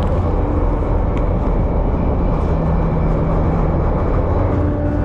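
Car ferry's engines running with a steady low rumble and a faint hum, heard on the open deck while the ship lies docked at the pier.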